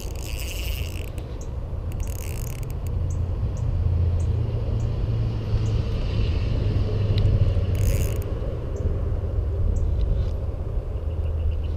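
Spinning reel being cranked: its gears whir and click in short runs, with evenly spaced ticks near the end. A steady low rumble underlies it and is the loudest part.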